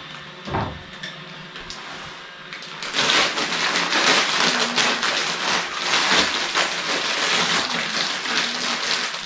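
Clear plastic LEGO parts bag crinkling and rustling as it is opened and handled. The crinkling starts about three seconds in, after a few light clicks.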